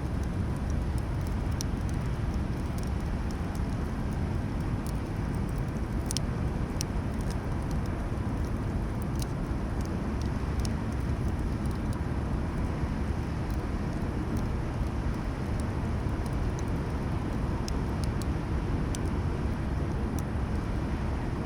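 Campfire crackling: scattered sharp pops and snaps, a few every couple of seconds, over a steady low rumble.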